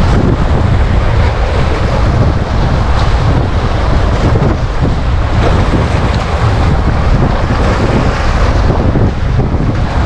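Small waves breaking and washing up onto a sandy beach, with wind rumbling on the microphone throughout.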